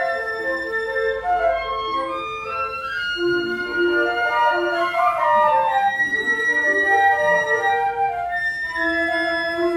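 A flute trio of piccolo, flute and alto flute playing together: several overlapping lines of short held notes, with a quick run of notes about halfway through.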